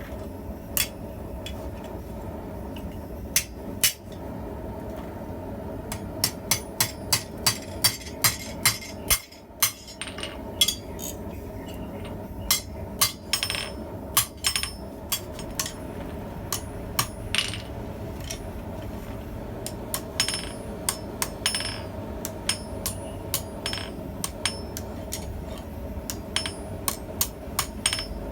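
Hand hammer striking hot steel on an anvil while forging a pair of tongs: a few single blows, then from about six seconds in, runs of quick ringing strikes at about three a second.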